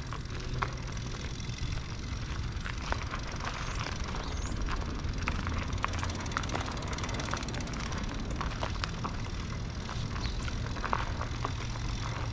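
Steady low engine rumble, with scattered light clicks and crunches over it and a run of short, high rising chirps during the first few seconds.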